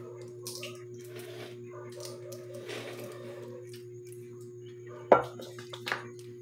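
Fingers peeling the cracked shell off a boiled balut duck egg, with small scattered crackles of shell. A sharp knock about five seconds in, the loudest sound, and a smaller one just after.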